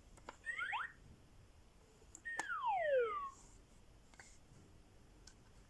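Electronic sound effects from a LeapFrog toy teapot's speaker: two quick chirping sweeps about half a second in. Then, after a click, a longer whistle-like tone about two seconds in slides steadily down in pitch.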